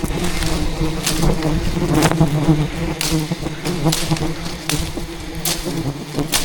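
A swarm of giant honey bees (Apis dorsata) buzzing in a steady drone close around the microphone, crossed by about a dozen sharp ticks. The colony is agitated and defending its nest while it is being harvested.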